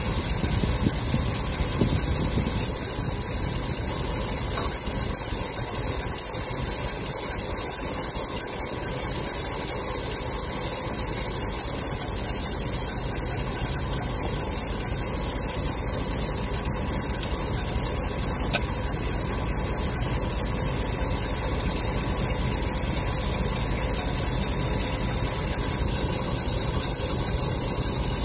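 Car engine idling with its serpentine drive belt giving a steady high-pitched squeak, which the owner traces to the spring-loaded belt tensioner.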